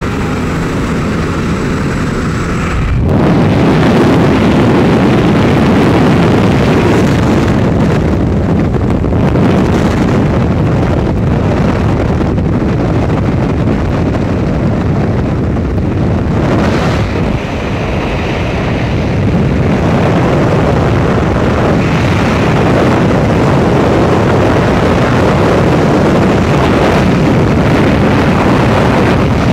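Heavy wind noise buffeting a helmet-mounted camera at an aircraft's open jump door, which becomes the steady rush of freefall air once the skydivers have left the plane. It gets louder about three seconds in.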